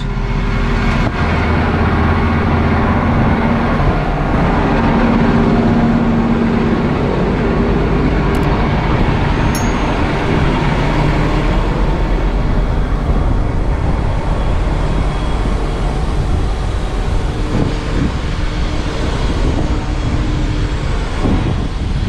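CLAAS Axion 930 tractor's diesel engine running steadily under load, its note shifting up and down a little as engine speed changes.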